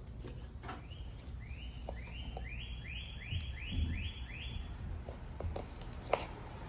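A bird calling a series of about eight identical short rising notes, about two a second, that stops a little under five seconds in. A few light knocks and handling sounds sit underneath.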